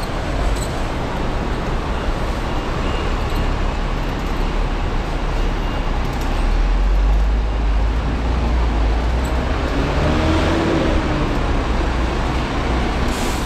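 City street traffic: vehicles running past in a steady wash of road noise, with a deep low rumble swelling about six to eight seconds in.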